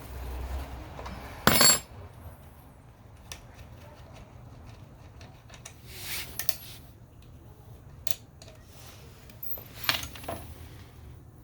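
Clinks, clicks and short scrapes of metal hand tools and parts being handled, such as a wrench working on wheel nuts. The loudest is a brief clatter about one and a half seconds in, with further short clatters around six and ten seconds in.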